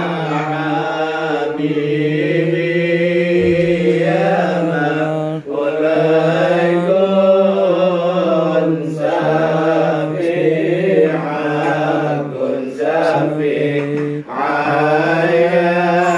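A man's voice chanting a prayer in long, melodic held phrases, pausing briefly for breath twice.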